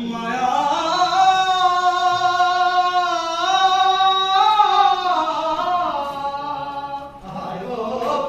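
One voice singing a Bengali folk song without accompaniment, holding a long, slightly wavering note that slides downward, then pausing briefly and starting a new phrase near the end.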